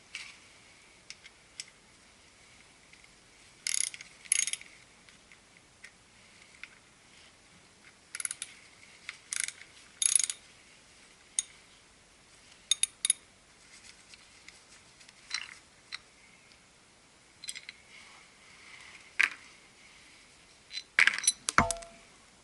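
Scattered short metallic clicks and clinks of hand tools and metal parts being handled, a few at a time with pauses between, and a quick clatter with a brief metallic ring near the end.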